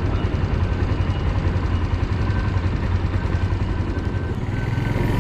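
Single-cylinder engine of a Suzuki Volty 250 motorcycle running steadily at low revs, a fast, even low chugging.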